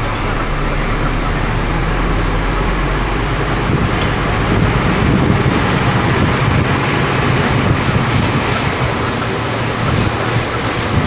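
Scania P310 fire truck's diesel engine running, heard inside the cab over tyre and wind noise. About four seconds in, the engine note turns rougher and a little louder as it pulls harder.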